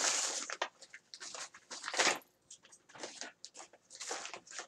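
Rummaging through a bag and its packaged items: irregular rustling and crinkling with small clicks, loudest right at the start and again about two seconds in.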